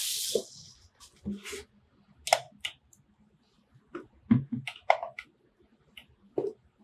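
Handling noise from a gaming headset and its cable being unwound on a wooden tabletop. A short plastic rustle plays at the start, then scattered clicks and light knocks as the cable and headset are moved.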